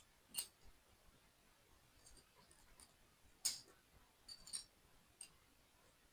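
Small plastic parts of a toy model kit clicking and tapping as they are handled and fitted together. There are a few sharp, separate clicks, the loudest about three and a half seconds in and a quick cluster just after four seconds.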